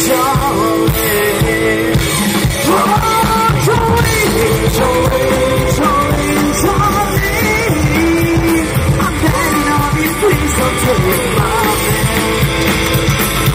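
Live rockabilly band playing a song with sung vocals over upright bass, drums and electric guitar.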